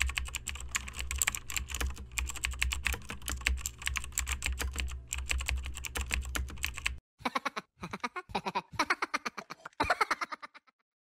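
Computer keyboard typing: rapid key clicks for about seven seconds, then after a brief pause a few shorter, quicker bursts of typing before it stops.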